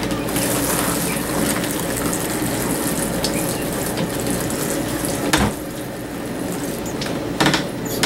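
Kitchen sink sprayer hissing as it sprays water onto the dry potting soil of a plastic seed-starting tray. The spray eases off about five seconds in, and two short knocks follow, one just then and one near the end.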